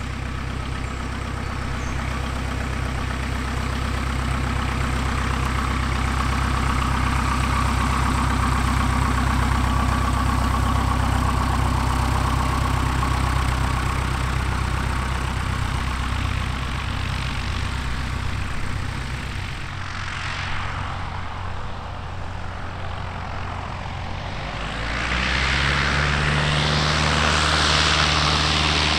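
A yellow Piper Cub's light piston engine and propeller running at taxi power, getting louder as it passes and then fading about two-thirds of the way through. Near the end a second light single-engine plane, a low-wing type, taxies close by, its engine and propeller louder.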